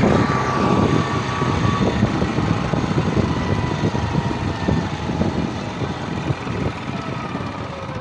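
Motorcycle running at road speed, heard as a dense, rumbling rush of engine and wind noise with irregular crackling buffets on the microphone.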